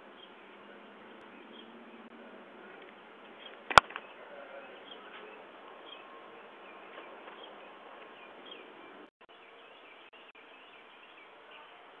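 Steady outdoor insect buzz and hiss through a doorbell camera's small microphone, with one sharp click about four seconds in.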